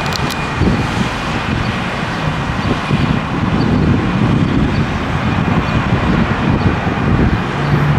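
Road traffic noise with wind buffeting the microphone, a gusty rumbling hiss. A steady low hum sets in near the end.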